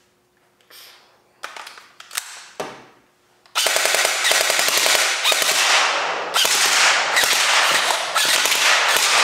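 A few clicks and knocks, then from about three and a half seconds in the Wells PDW ARP electric gel blaster fires on full auto in long, rapid bursts with two short breaks. Its gearbox is cycling again after being rebuilt with the bushings shimmed.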